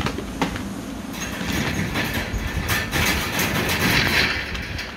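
American bully puppies scuffling in a hard plastic kiddie pool: claws clicking and scrabbling and bodies scraping across the plastic floor. The scraping thickens and grows louder from about a second in until near the end.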